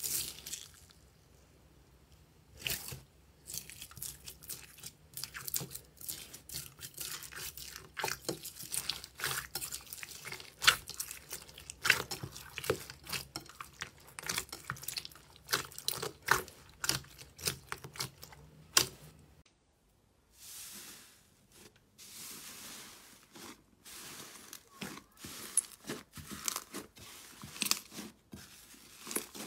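Hands squeezing, pressing and stretching slime in a glass bowl: many sharp pops and crackles as it squelches and air pockets burst. About two-thirds of the way in there is a short pause, then softer, hissy crinkling with more pops.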